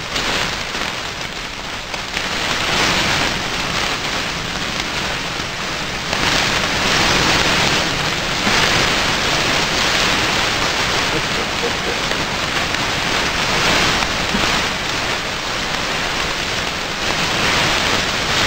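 Hamburger patties sizzling and fat crackling as it drips into open charcoal flames that flare up under them, swelling louder several times.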